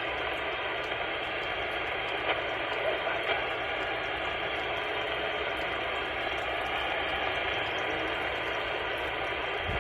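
Anytone AT-6666 CB radio hissing with static through its speaker on an open channel, with a few faint clicks about two to three seconds in.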